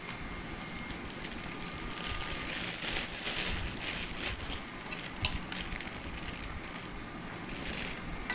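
A dog chewing food, with crunching and crackling and a run of sharp clicks, densest about two to five seconds in.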